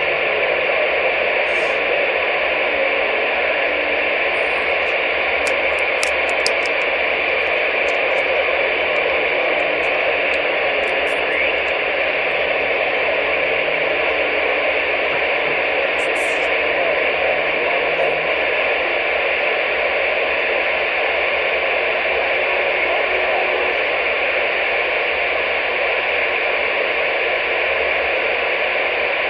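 Steady hiss of CB radio static from a receiver with its channel open and no one transmitting.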